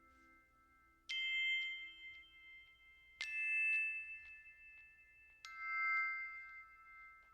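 Three struck chime-like notes, each starting sharply and ringing out for about two seconds before the next, about two seconds apart.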